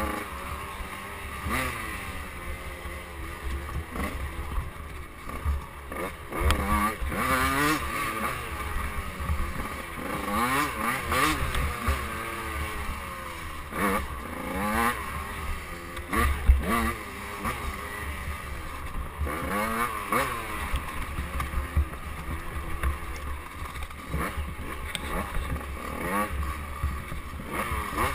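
KTM 85cc two-stroke dirt bike engine revving up and falling back again and again as the rider works the throttle and gears, with occasional knocks and rattles from the bike over rough ground.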